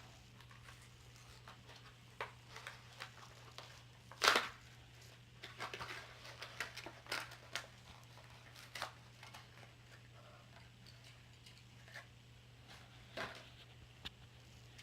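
A Hot Wheels blister package being opened by hand: scattered crinkles, tears and clicks of plastic and card, with one sharp snap about four seconds in.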